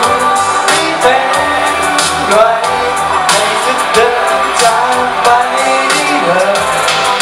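A male singer sings a pop song into a handheld microphone over a backing track with a steady beat, amplified through a PA.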